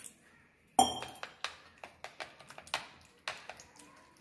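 A sharp metal clink with a short ring about a second in, then a metal spoon tapping and clicking irregularly against a bowl as a raw egg mixture with onion and tomato is beaten.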